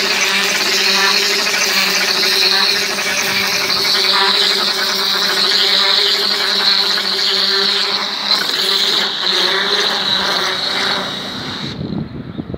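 A machine or engine running steadily, a constant hum under a loud even hiss. The hiss cuts off abruptly near the end.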